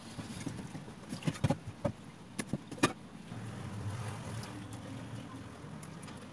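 Raw shrimp tipped from a plate into a stainless steel bowl in a steel sink, with a few sharp clicks and knocks as they drop and the plate is set down on the steel. After that come faint handling sounds of shrimp being peeled over a low steady hum.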